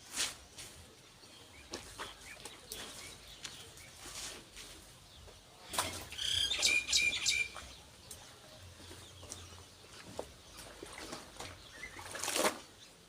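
Clothes being washed by hand: wet fabric swished, rubbed and shaken in irregular strokes. A short run of bird chirps comes about six to seven seconds in.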